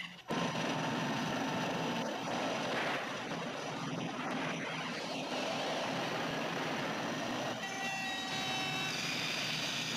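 Film sound effect of a loud, continuous rumble that starts suddenly just after the start, as smoke and fire burst from the rock. Sustained orchestral notes come in on top of it at about eight seconds.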